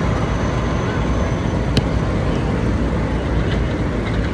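Steady rumble of city street traffic, with one sharp click a little under two seconds in.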